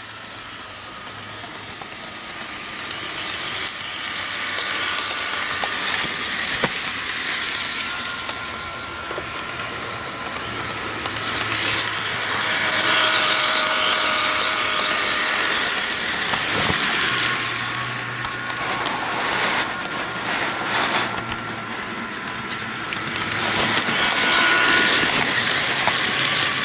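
HO scale model train, a Bachmann Santa Fe EMD F7 locomotive pulling cars, running around a loop of track: a small electric motor whining, wheels rattling and clicking on the rails. The sound swells each time the train comes past close by, about every ten seconds.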